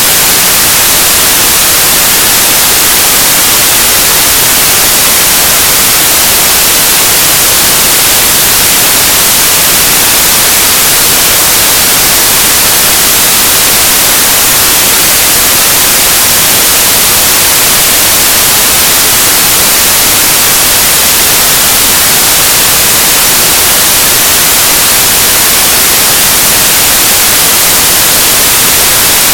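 Loud, steady hiss of static in the recording: even and unchanging, strongest in the high end, with no other sounds standing out.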